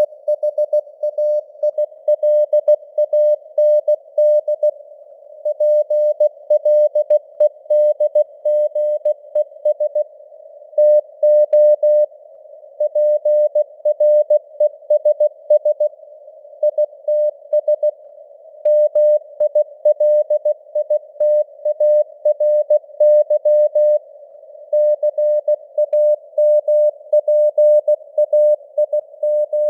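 Morse code (CW) sent at 16 words per minute: a single steady tone keyed on and off in short and long beeps, with gaps between letters and words. A narrow band of simulated radio hiss surrounds the tone, and the signal strength varies as simulated fading (QSB).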